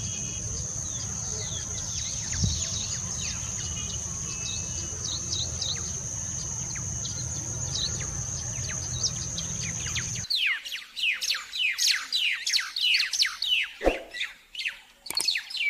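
Small birds chirping, taken to be weaver birds. For about ten seconds sparse short chirps sit over a steady high-pitched drone and a low rumble. Then the sound changes abruptly to a loud, dense chatter of many quick falling chirps.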